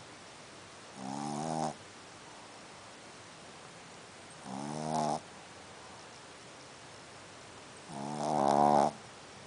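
Shih tzu snoring: three snores, each under a second long and about three and a half seconds apart, the last one loudest.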